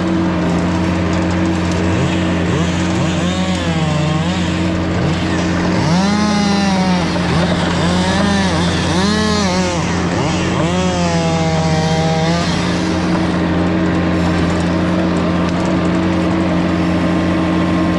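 Mini skid steer's engine running steadily, with its pitch rising and falling several times about a third of the way in as it works under load, then settling back to a steady note.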